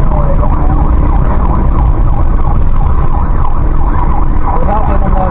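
A siren wailing over heavy engine and road rumble, heard from inside a car accelerating hard during a police chase.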